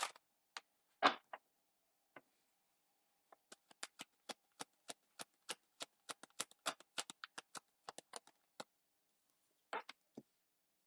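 A deck of tarot cards being put back together and shuffled by hand: a few taps and a thump, then a run of quick, sharp card clicks at about three or four a second, stopping briefly and ending with two more clicks.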